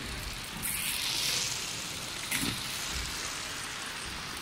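Many small steel slingshot balls rolling and clattering over a wooden gym floor, a dense rain-like patter with a louder swell about a second in and a single sharp click a little past two seconds.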